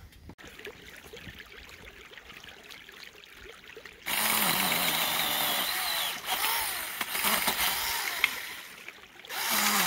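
A Foonsen 21V mini battery electric chainsaw starts about four seconds in and runs while cutting a branch, its motor pitch wavering under the load. It dies away near the end, then starts again.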